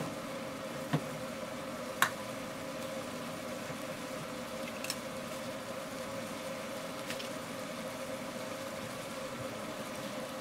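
Ground meat frying and sizzling in a steel frying pan on the forge coals, over a steady mechanical hum. A few sharp clicks of the stirring utensil against the pan, the loudest about two seconds in.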